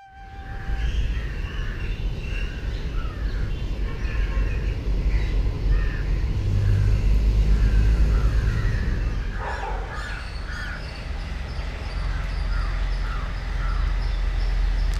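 Outdoor daytime ambience: crows cawing repeatedly over a steady low rumble, with one louder call falling in pitch about nine seconds in.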